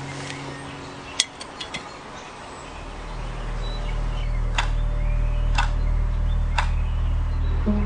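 A few light metal clinks about a second in, as the duck is hung on its hook. Then a low steady drone with three sharp ticks a second apart, like a clock ticking out a long wait.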